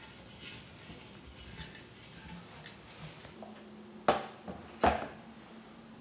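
Paper towel rubbing the inside of a glass jar in faint strokes, then a plastic digital kitchen scale set down on a countertop with two sharp knocks about a second apart.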